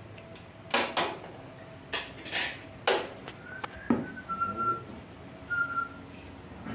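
A large stainless steel cooking pot lifted off a portable stove and set down on a tiled floor: a series of sharp metallic clanks and knocks, about six in the first four seconds. A thin high whistle sounds briefly three times in the second half.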